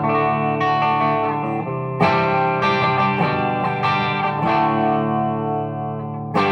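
Electric guitar, a Les Paul-type, played on the clean sound of a Matchless Laurel Canyon amp head through a 2x12 cabinet with Celestion G12M-65 speakers: strummed chords left to ring, with a hard strum about two seconds in and another near the end.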